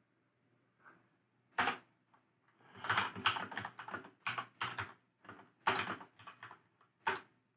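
Typing on a laptop keyboard: a single keystroke, then a quick irregular run of keystrokes, then a few more scattered ones.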